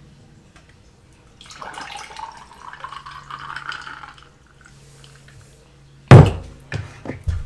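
Juice poured from a bottle into a glass for about three seconds, the pouring sound rising in pitch as the glass fills. About six seconds in there is a loud thump, followed by a couple of lighter knocks.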